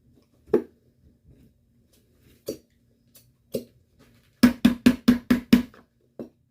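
Hollow knocks on a hard object: three single knocks spaced a second or so apart, then a quick run of six knocks at about five a second, and one more near the end.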